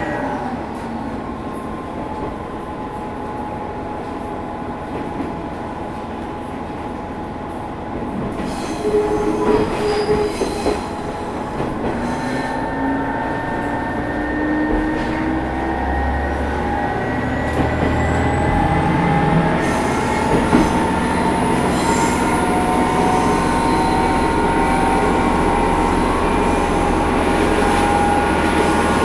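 Matsuura Railway MR600-class diesel railcar heard from on board while running, with thin sustained high tones over the wheel and engine noise. About eight seconds in it grows louder, and the engine note glides upward through the middle of the stretch.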